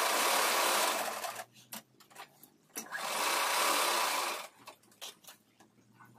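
Domestic sewing machine stitching through a thick layered quilt, running in two spells of about one and a half seconds each and then stopping, with only a few small clicks of the machine and cloth in between and after.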